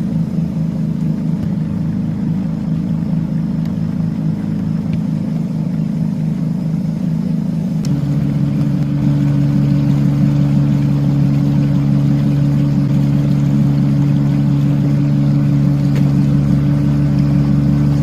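Small motorboat's engine running steadily under way. About eight seconds in it becomes louder and holds a steadier note.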